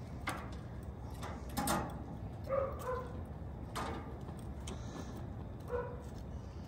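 A dog barking in short single barks, two close together about halfway in and another near the end, with a few sharp knocks in between.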